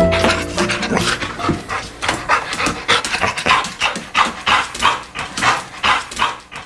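A dog panting quickly and evenly, about three breaths a second. Plucked-string music dies away in the first second.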